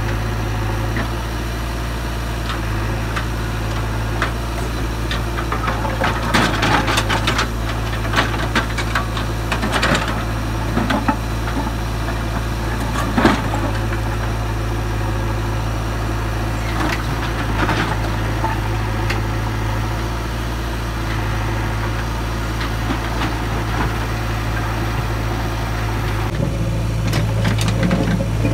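JCB 3DX backhoe loader's diesel engine running steadily while its backhoe bucket digs into broken rock, with several bursts of rock scraping and clattering against the steel bucket; the sharpest knock comes a little under halfway through.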